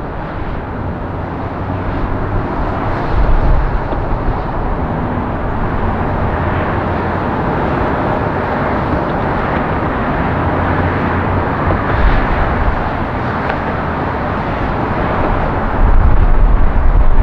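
Jet noise of an Airbus A330-900neo's Rolls-Royce Trent 7000 engines during its landing roll: a steady, broad rushing sound, with two louder low rumbles, one about three seconds in and one near the end.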